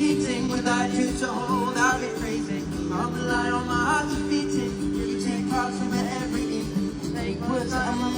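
Live pop song: acoustic guitar holding steady chords under a wordless male vocal line that glides and wavers in pitch.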